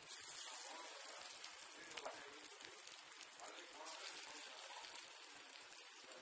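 Hot oil sizzling and crackling steadily around battered pieces deep-frying in a pan, with small pops throughout.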